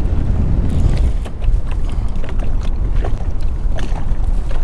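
Steady wind buffeting the microphone on an open boat deck, a loud low rumble, with faint water slapping against the hull.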